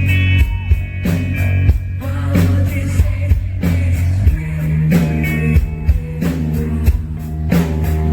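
A live rock band playing, with guitar, bass and a drum kit: a heavy, sustained bass line under sharp, regular drum hits.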